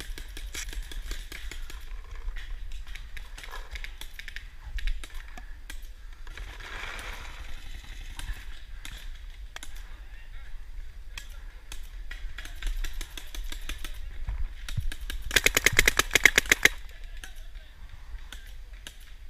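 Paintball markers popping in scattered shots, then a loud, rapid string of shots from a nearby marker lasting about a second and a half near the end.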